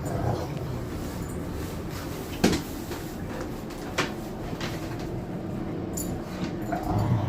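Dogs play-wrestling: scuffling, with a sharp knock about two and a half seconds in and another at four.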